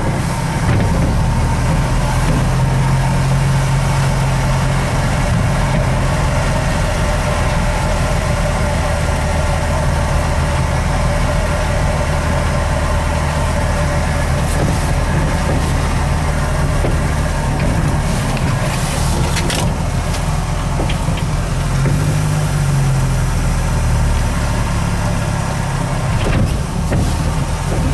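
1947 Dodge D-24's flathead straight-six running steadily at idle. A little over two thirds of the way through, the engine note briefly rises and falls.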